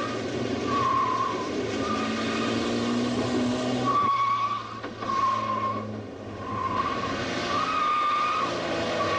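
Valiant Charger driven hard, its engine running under a string of short tyre squeals that come about once a second as it slides around.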